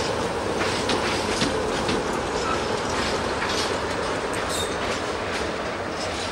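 Freight train of covered grain-hopper wagons rolling steadily past, wheels clacking over the rail joints, with a brief high wheel squeal about two-thirds of the way through.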